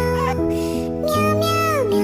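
Children's cartoon song: a high, synthetic-sounding voice sings long, meow-like notes that slide down in pitch, over steady synth chords.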